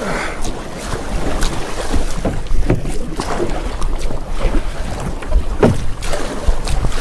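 Canoe being paddled hard from a standing start: repeated paddle strokes splashing in the water and knocking on the plastic hull, over a steady rumble of wind on the microphone.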